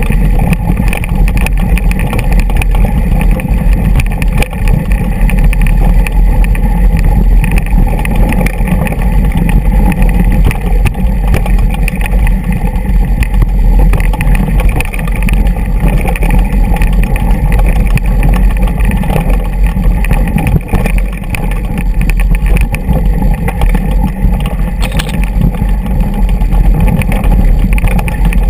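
Mountain bike rolling down a rocky dirt track: tyres crunching over loose stones and the bike rattling, with constant small clicks, under a steady heavy rumble of wind on the microphone.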